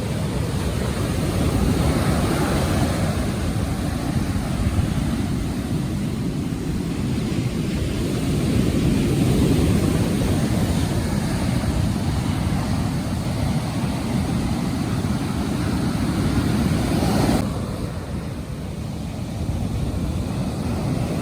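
Wind buffeting the microphone over breaking surf: a steady, low rumbling noise that drops off sharply about seventeen seconds in.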